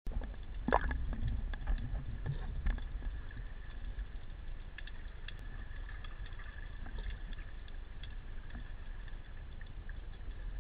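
Underwater ambience picked up by a camera in its waterproof housing: a low muffled water rumble with scattered sharp clicks, a few louder knocks in the first three seconds, and a faint steady high whine.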